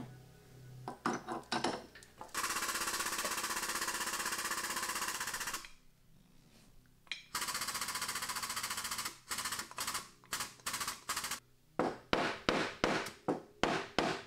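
Two spells of dense, rapid rattling, each a few seconds long, then a run of sharp hammer blows on the crash-damaged sheet metal of a Porsche Cayman's rear wheel arch, about two to three a second near the end, as the bent panel is knocked back into shape.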